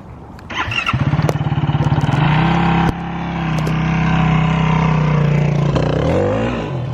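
Motorbike engine coming in about half a second in, firing at low revs, then revving up and holding a steady pitch. The sound breaks off suddenly about three seconds in and then runs steady again, with the revs rising and falling near the end.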